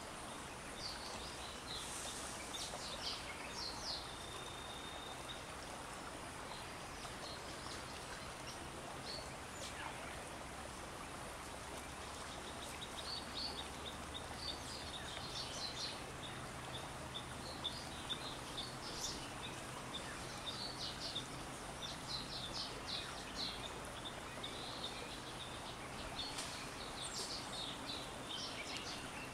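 Faint forest-stream ambience: the steady murmur of a small stream under scattered high bird chirps and calls, with a fast, high ticking trill running through the second half.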